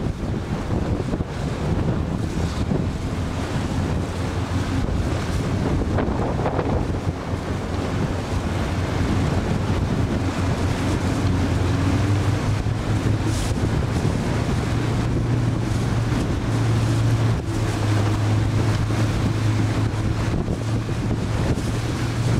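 Wind buffeting the microphone over the wash of water, loud and steady throughout. About halfway through, a low steady hum comes in and grows stronger.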